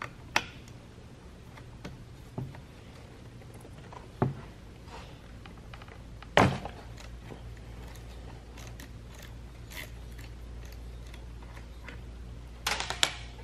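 13 mm wrench clicking and knocking against a chainsaw as its decompression valve is unscrewed: a few separate sharp knocks, the loudest about six seconds in, and a short clatter of several clicks near the end, over a low steady hum.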